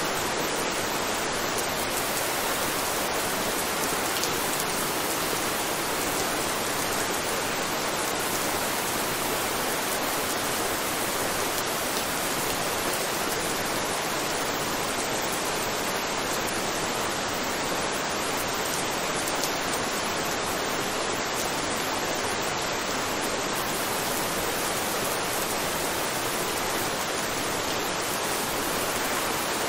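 Steady rainfall, an even, unbroken hiss of rain.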